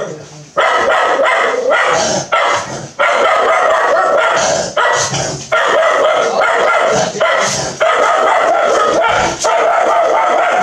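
A dog barking and yapping loudly and almost without pause, in long runs broken by only short gaps.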